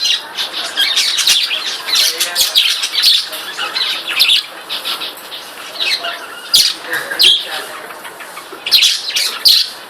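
Pet budgerigars chirping and chattering continuously in quick, high warbling calls, with a few louder, sharper squawks toward the end.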